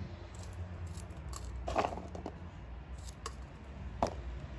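A few light clicks and taps from peeled garlic cloves and a small knife being handled over a glass pickle jar, the sharpest about four seconds in. A low steady hum runs underneath.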